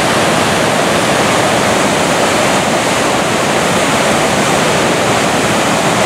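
Loud, steady rushing of a large waterfall on the Akerselva river, heard close up from the path beside it.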